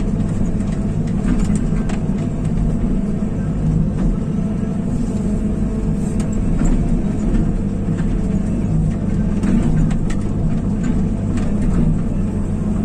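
Backhoe's diesel engine running steadily while digging a trench, with scattered light knocks and clicks over it.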